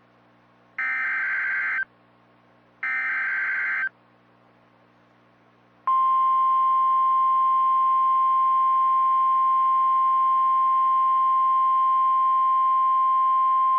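Emergency Alert System tornado warning signal: two raspy, one-second bursts of the SAME digital header (the last two of its three repeats), then about two seconds of quiet, then the single steady 1050 Hz National Weather Service warning alarm tone starting about six seconds in.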